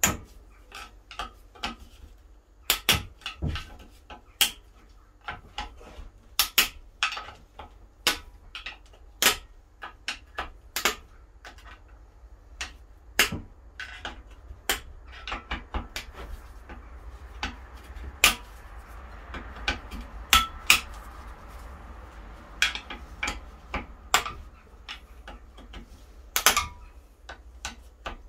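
Steel hand tools working on the bolts of a Mazda Miata 1.6 engine bottom end during stripdown: irregular sharp metallic clicks and knocks, one to three a second, over a faint low hum.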